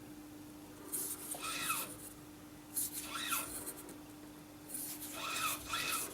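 Metal lathe running with a steady hum while a brass part is worked on it, with about four short scraping passes of metal on metal.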